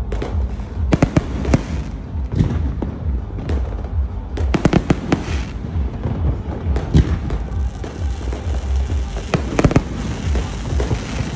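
Fireworks display: repeated sharp bangs and crackles of bursting fireworks, with a dense rapid flurry a little before halfway and another cluster near the end, over a constant low rumble.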